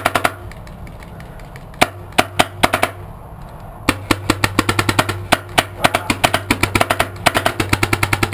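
Paintball guns firing in rapid bursts, several sharp pops a second: a short burst early on, another about two seconds in, then a long unbroken string from about four seconds in.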